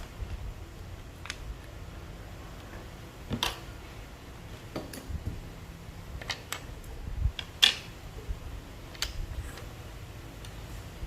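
Plastic keycaps being handled and set down, a scattered run of sharp clicks and small knocks, with one louder click about seven and a half seconds in.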